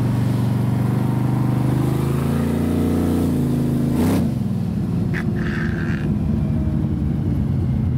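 Hot rod engine pulling hard, heard from inside the car, its note rising for about four seconds. Just after four seconds the note breaks off sharply and falls, then settles to a lower, steady run.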